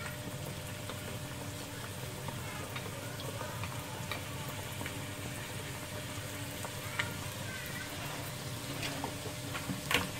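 Flour-dough katori deep-frying in oil over a low flame under a steel bowl: a steady sizzle with scattered crackling pops, and a sharp click near the end.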